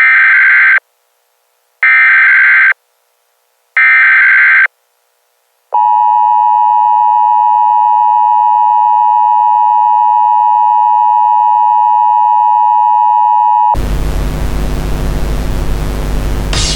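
Emergency Alert System tones: three short screeching bursts of SAME header data, each under a second with about a second's gap, then the steady two-tone attention signal for about eight seconds. Near the end loud harsh noise takes over.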